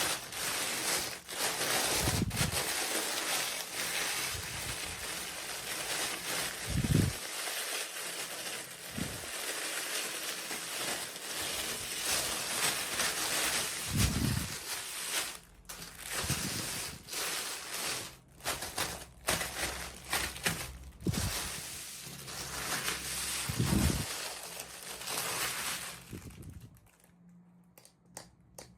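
Toy packaging being handled and opened: plastic and paper wrapping rustling and crinkling, with scattered clicks and a few dull knocks. It stops shortly before the end.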